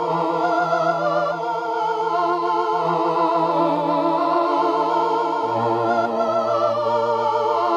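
Suiko ST-50 synthesizer playing sustained notes with a wavering vibrato over a held bass note. The bass note shifts lower about five and a half seconds in.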